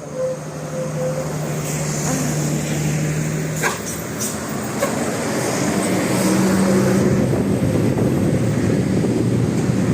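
Bus engine running and growing louder as it comes closer, with a steady low hum held for the first few seconds.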